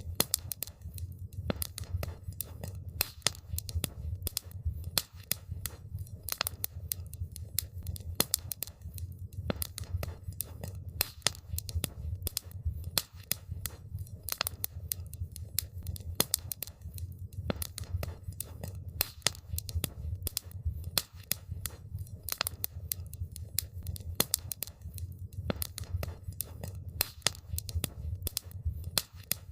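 Campfire crackling: burning wood gives off irregular sharp pops and snaps, several a second, over a steady low rumble.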